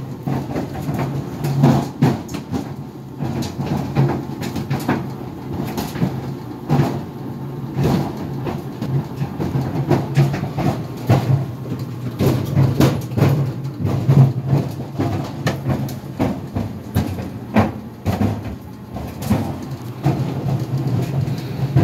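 GE Profile Harmony clothes dryer tumbling a load with sneakers inside: a steady drum-and-motor hum under rapid, irregular thumping and banging.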